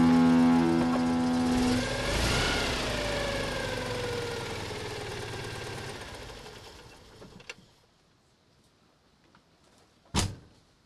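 A held droning tone stops about two seconds in. Then a car engine goes past with a falling pitch and fades away over several seconds. A click follows, and near the end one sharp knock.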